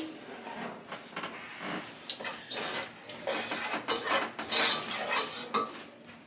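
A cooking spoon scraping and clinking against a pot as chopped onions are stirred, in irregular strokes with the loudest clink about four and a half seconds in.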